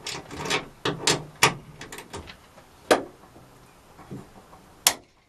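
Spanner working a bolt through a van's steel rear door to tighten down the spare wheel carrier mount: a run of irregular metallic clicks and knocks in the first two seconds or so, then two sharper single clicks about three and five seconds in.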